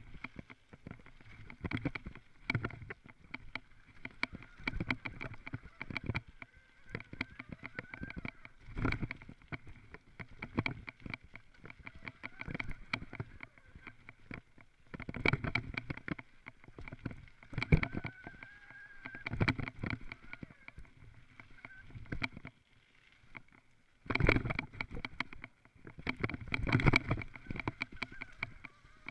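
Mountain bike clattering and rattling over a rough dirt trail at speed: a rush of tyre noise on the dirt broken by frequent knocks and jolts from the frame and components, with heavier bursts of clatter about halfway through and again near the end.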